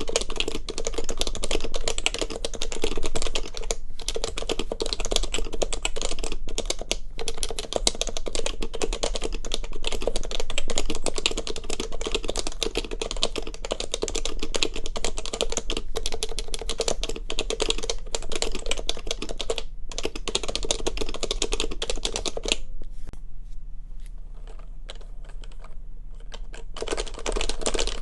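Fast, continuous typing on an HHKB Professional Classic keyboard with Topre switches, fitted in a heavy metal housing. The keystrokes thin out to a sparse few about 22 seconds in, then come thick again near the end.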